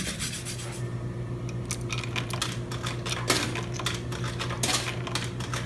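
Scraping for about the first second, then scattered light clicks and taps over a steady low hum.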